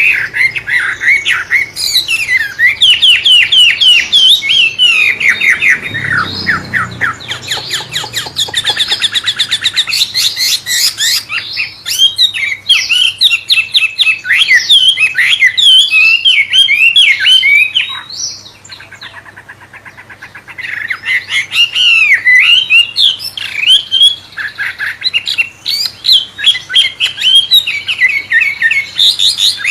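A wambe bird singing a long, varied song of rapid trills and quick rising and falling whistled notes, in the manner of a magpie-robin (murai), with a brief lull about two-thirds of the way through.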